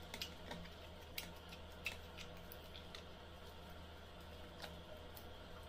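Faint, irregular small clicks and squishes of slime being scooped out of a small plastic tub, over a low steady hum.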